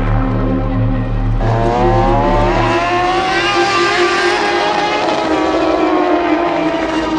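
Sport motorcycle engine revving hard, its pitch climbing from about a second and a half in, then falling slowly as the bike runs on past.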